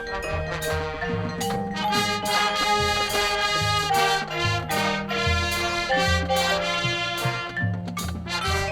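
Marching band playing live, with mallet percussion such as marimba and xylophone to the fore over regular drum hits.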